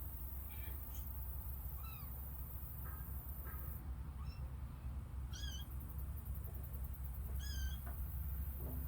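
Kittens mewing: three faint, short, high-pitched mews a few seconds apart, over a steady low hum.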